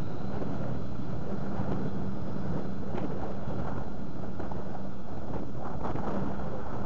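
Push boat's twin John Deere 6081 diesel engines running under way, a steady low drone heard through heavy wind noise on the microphone.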